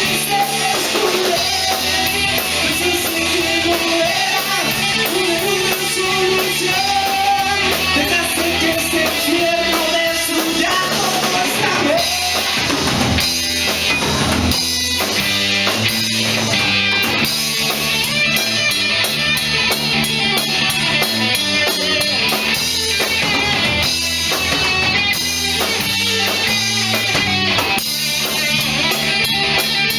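Rock band playing with guitar and drums. A held vocal line fades out about twelve seconds in, and the band carries on with an instrumental passage.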